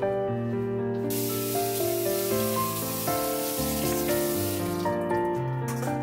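Kitchen tap running for about three and a half seconds, starting about a second in and shutting off, over background music.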